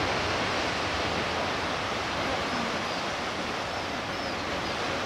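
Steady rushing noise of sea surf breaking along the base of a rocky cliff, with a few faint high chirps about midway.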